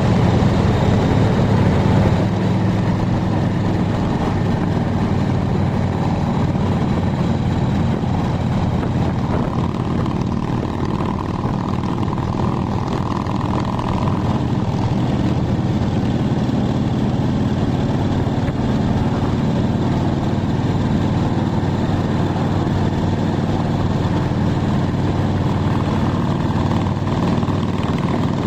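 Steady low rumble of road, tyre and engine noise heard inside a moving car's cabin.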